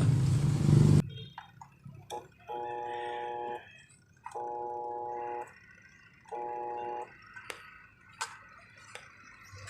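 Washing machine motor humming without turning, the sign of a failed start capacitor, until it cuts off about a second in. Then three electronic beeps of about a second each, with light clicks and handling noises between them.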